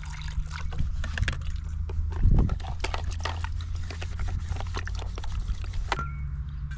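Clinking and scraping of cookware being scrubbed and washed by hand, over a steady low hum.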